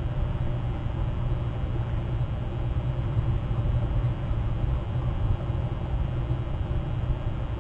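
Steady low rumble of outdoor background noise with no distinct calls or knocks.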